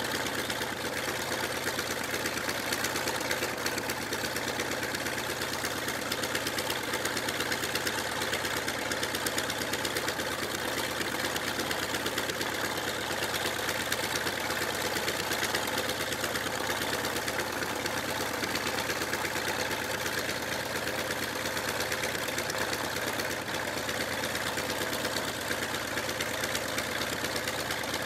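Grumman Wildcat fighter's radial piston engine idling steadily, its propeller turning over.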